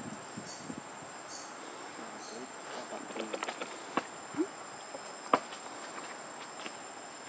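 Insects in the surrounding forest keep up a steady high-pitched drone. A few sharp clicks cut across it, the loudest about five seconds in.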